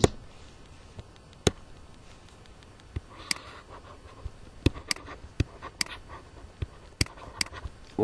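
Stylus tapping and clicking on a pen tablet during handwriting: irregular sharp clicks, a few at first and then coming quickly in the second half.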